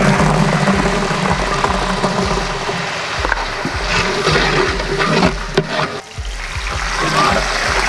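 Whole shallots tipped into hot coconut oil in a large aluminium cooking pot, sizzling and hissing as they fry; a bowl of mint leaves goes in near the end.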